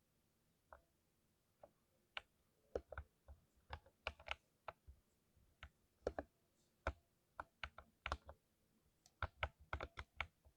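Typing on a mechanical keyboard: irregular keystrokes, a few spaced taps at first, then steady typing and a quick flurry of keys near the end.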